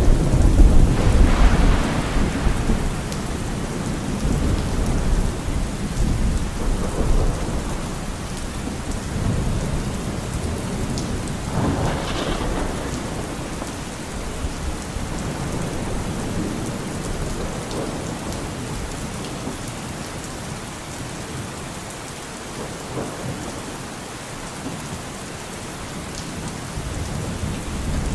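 Steady rain falling, with rolling thunder: a loud low rumble at the start that fades over several seconds, and another peal about twelve seconds in.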